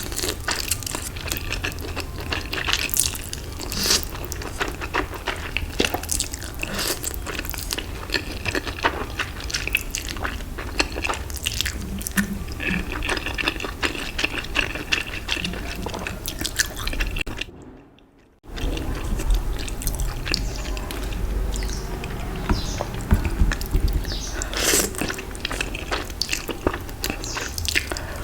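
Close-miked eating sounds: a person biting, crunching and chewing, with many irregular small crackles and clicks. They break off for about a second roughly two-thirds of the way through.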